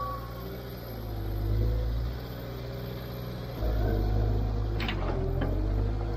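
New Holland skid steer's diesel engine working under load while towing, its revs rising and falling. Two short knocks come about five seconds in.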